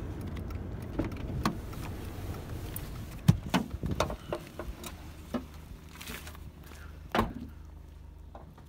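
Car engine running with a steady low hum, heard from inside the cabin, with a string of sharp knocks and clicks as a hand handles the phone against the dashboard; the loudest knock comes about three seconds in.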